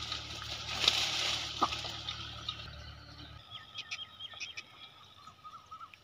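Outdoor farm-field sound: an even hiss over a low hum for the first half, cutting off suddenly, then a few faint bird chirps.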